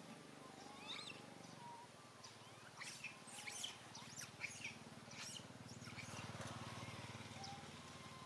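Faint high-pitched animal chirps: a couple of short ones about a second in, then a quick cluster of sharp chirps in the middle, over a low steady hum.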